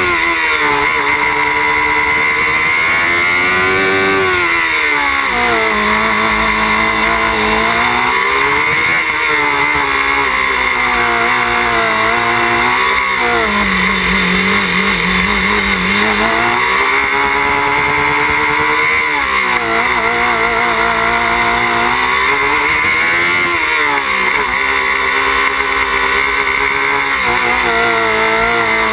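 Small open-wheel race car's engine heard on board while driving, its pitch rising and falling over and over as the driver accelerates and lifts, lowest about halfway through before climbing again.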